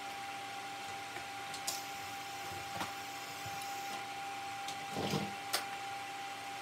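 Steady electrical hum with a constant high whine and hiss, with a few light clicks and a soft knock and rustle about five seconds in as gloved hands handle the filler rod, helmet and TIG torch.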